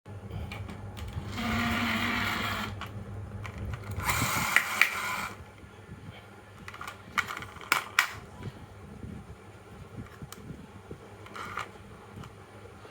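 Toys rolling and clattering on a wooden marble-run track. A rattling run fills the first five seconds, followed by a few sharp clacks.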